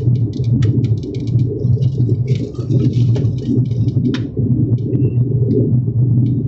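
Cabin noise of an ATR 72-600 turboprop climbing after takeoff: the steady low drone of its propellers and twin Pratt & Whitney PW127 turboprop engines, with faint scattered clicks.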